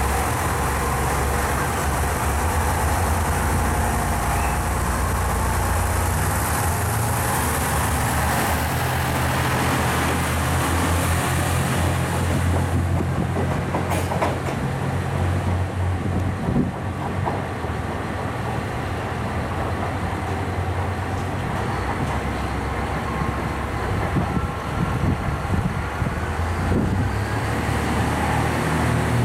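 Diesel railcars: a KiHa 187 limited express's diesel engines run loud with rail noise as it pulls out on the adjacent track, the noise thinning out after about twelve seconds. A KiHa 126 local diesel railcar's engine runs steadily as it rolls slowly up to the platform. A sharp click comes about fourteen seconds in.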